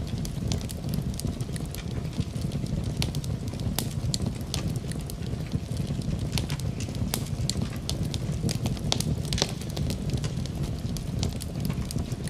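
Wood fire burning in a fireplace: a steady low rumble of flames with frequent sharp crackles and pops scattered irregularly throughout.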